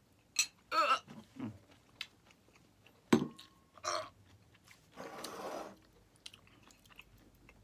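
A person chewing a beondegi, a boiled silkworm pupa, with mouth clicks, short wavering groans of disgust and a breath out partway through.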